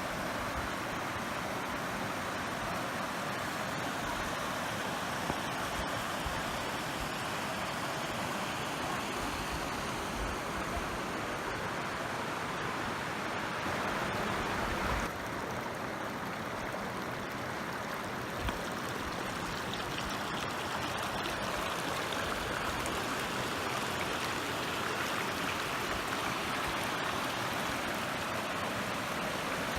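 Waterfall: a steady rush of falling water, a little duller from about halfway through.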